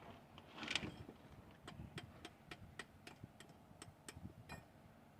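Faint metal-on-metal hand-tool noise: a short scrape about a second in, then a run of about a dozen sharp clicks, three or four a second, ending in a brief rattle.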